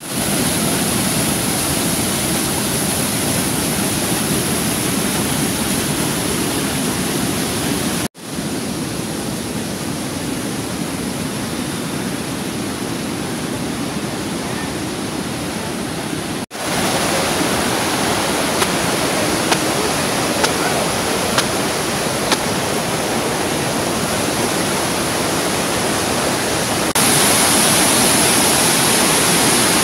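Muddy floodwater pouring over a wide lake weir and churning through rocky rapids below: a steady, heavy rush of water. It cuts out briefly twice and is a little louder near the end.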